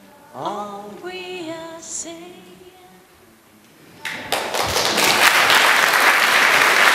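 A single voice sings a last short unaccompanied phrase, sliding up into held notes. About four seconds in, an audience breaks into loud applause, which keeps going.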